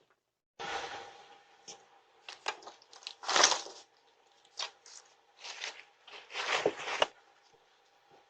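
A series of irregular rustling and scuffing noises over a faint steady hum.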